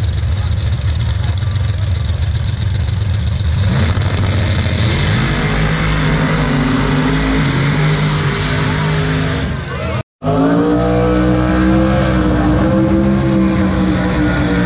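Drag race car engines running loud, a low rumble at first, then revving up with rising pitch about four seconds in. After a brief dropout about ten seconds in, an engine holds high revs steadily with a slight waver, then falls away near the end.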